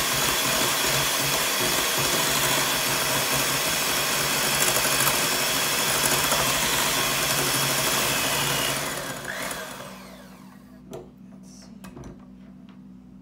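Electric hand mixer running steadily, its wire beaters whipping instant coffee and hot water in a glass bowl. About nine seconds in it is switched off and winds down, followed by a couple of light knocks.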